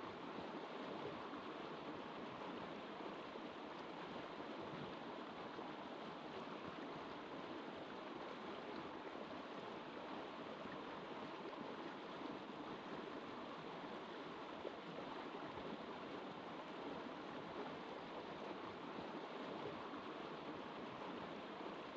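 River water flowing, a steady, even wash of sound.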